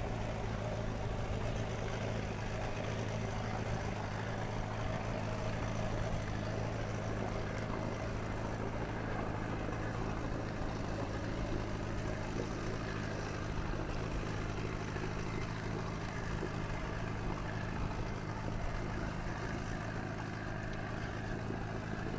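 Outboard motor of a small fishing boat running steadily as it passes by on the water, a low even drone.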